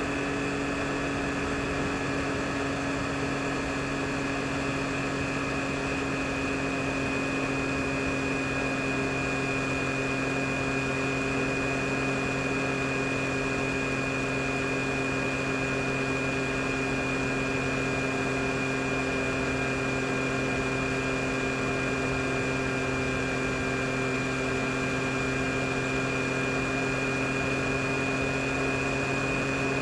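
2022 Yamaha MT-09 SP's 890 cc inline-three engine running at steady revs under way, its pitch holding almost constant, over a steady rush of wind and road noise.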